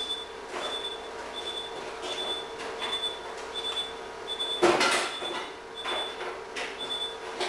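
Operating-room patient monitor giving a short high beep about every 0.7 seconds, the pace of the anaesthetised dog's pulse, over a steady equipment hum. A brief loud burst of noise cuts across it about five seconds in.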